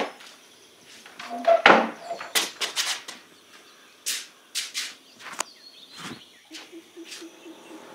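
Hard-soled shoes walking on a concrete floor, a string of separate irregular steps, with the rustle and clack of an umbrella being shaken and folded at the start.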